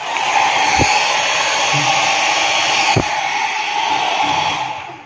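Wall-mounted hotel hair dryer switched on and blowing steadily with a rushing whir, then shutting off near the end. Two light knocks from handling it come through partway in.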